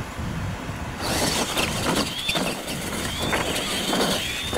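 Electric radio-controlled monster trucks racing on dirt: about a second in, a rushing hiss of motors and tyres sets in, with short rising motor whines and several knocks as the trucks run over the ramps.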